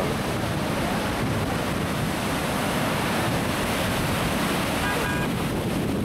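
Pacific surf breaking and washing in, a steady rush of waves, with wind buffeting the microphone.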